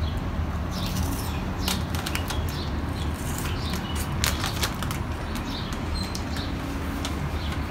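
Irregular crunching and crackling as a crunchy hot Cheeto is chewed, over a low steady rumble.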